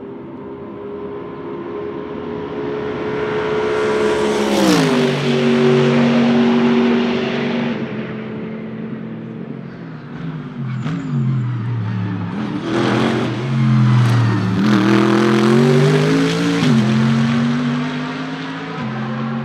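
Mercedes-AMG GT3 Evo race cars' naturally aspirated V8 engines at speed, passing by twice. The first holds a steady note that grows louder and drops in pitch as it passes, about five seconds in. The second rises in pitch as it accelerates, then drops as it goes by about three-quarters of the way through.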